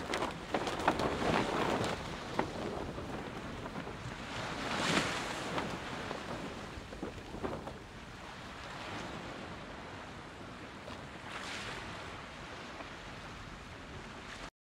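Wind and sea-water noise on a sailing boat under sail: a rushing noise that swells and eases three times, then cuts off suddenly near the end.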